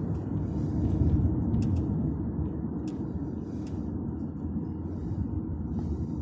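Steady low rumble of a car driving on a paved road, heard from inside the cabin: engine and tyre noise.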